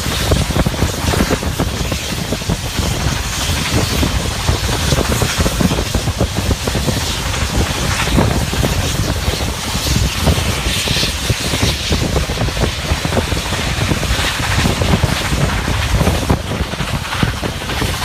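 Steam-hauled passenger train running, heard from an open carriage window: wind buffeting the microphone over the steady rumble of the train on the track.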